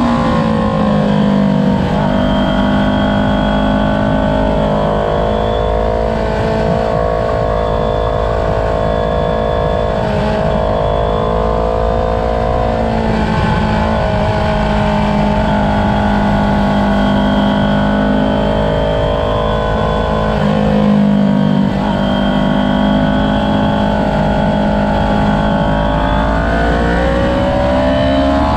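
Sport motorcycle engine heard from a camera mounted on the bike while it is ridden hard. The pitch drops in the first couple of seconds, then holds high and fairly steady with brief dips, and climbs again near the end as the bike accelerates. A steady rush of wind on the microphone runs underneath.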